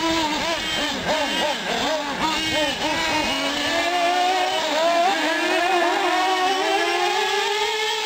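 Several nitro-powered 1/8-scale RC off-road trucks and buggies racing, their small two-stroke glow engines buzzing and revving, the pitch swinging up and down with the throttle. From about four seconds in, one engine holds a long, rising whine as it runs at full throttle.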